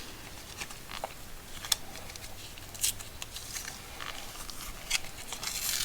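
Light handling noise from tool accessories and packaging: a few faint, sharp clicks and taps over a low room hum.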